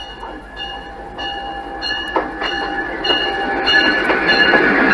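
CP Rail F-unit diesel locomotive leading a commuter train past at close range, its bell ringing at a steady beat of about three strikes every two seconds. Engine and wheel noise grows steadily louder as it comes alongside.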